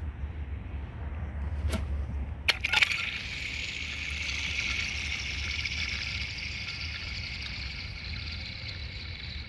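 A thrown chunk hits thin frozen pond ice with a few sharp clicks about two seconds in. The ice then rings with a long, high-pitched whirring that slowly fades over about six seconds, the chirping 'laser' sound of thin sheet ice set vibrating.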